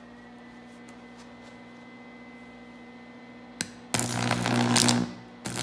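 Carbon arc drawn between two carbon rods, one taken from a carbon-zinc battery, fed by a MIG welder set near its maximum. A steady low hum runs throughout. About three and a half seconds in there is a sharp snap, then the arc catches and crackles and hisses loudly for about a second. It breaks off briefly and catches again near the end, and the hum grows louder while the arc burns.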